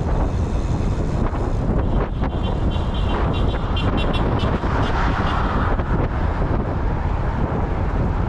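Wind buffeting the microphone on a moving motorcycle, with steady engine and road rumble underneath. Around the middle there is a short run of high beeps.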